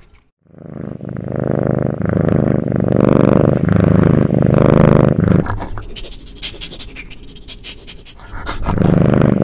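A low, drawn-out animal-like growl lasting about five seconds. It is followed by a few seconds of rapid clicking and scratching, and another growl begins near the end.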